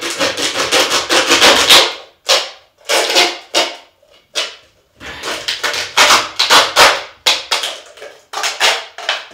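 Handsaw sawing into a plastic water bottle: quick rasping back-and-forth strokes, several a second, in runs with a few separate strokes and short pauses around the middle.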